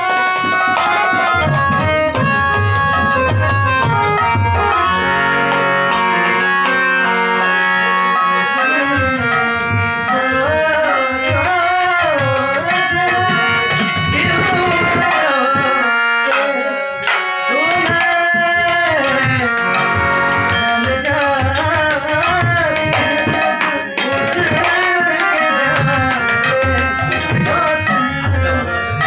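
Khol drum played by hand in a steady rhythm with a harmonium holding chords. A man's voice comes in singing over them about nine seconds in.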